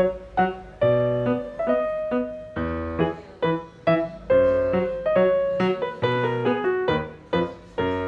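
Background piano music: chords and single notes struck in a steady, gentle rhythm, each note fading before the next.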